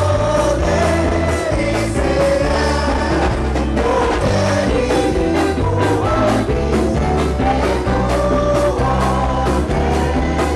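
Gospel music: singers' voices over a band playing a steady beat.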